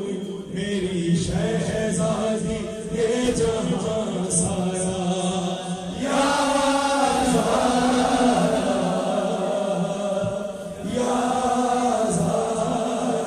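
A male voice chanting a manqabat, an Islamic devotional praise song, into a microphone, in long held lines that swell louder about halfway through.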